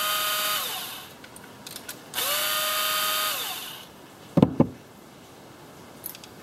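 Cordless electric screwdriver running in two short bursts, each spinning up and winding down, backing out the small screws that hold the motor inside a Yamaha 4x4 servo housing. Two sharp knocks follow, about four and a half seconds in.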